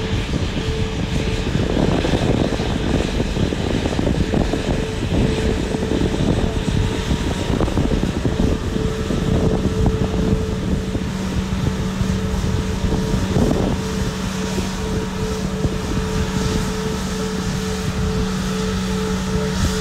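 Sukhoi Superjet 100's twin PowerJet SaM146 turbofans running at taxi idle: a steady jet rumble with a constant hum. A second, lower steady tone comes in about halfway through.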